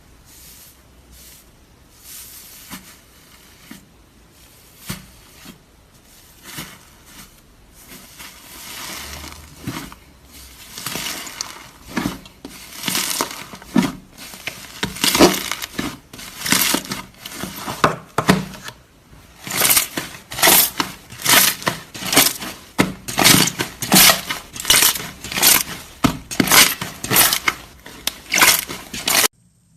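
Slime being squeezed and kneaded by hand, with sticky crackling and popping squishes. They start faint and sparse and grow louder and more frequent, about two a second in the second half, then stop abruptly near the end.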